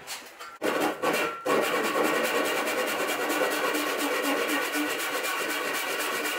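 Bahco handsaw cutting across a wooden handrail to form a tenon shoulder: a couple of short starting strokes, then steady, fast back-and-forth sawing from about a second and a half in.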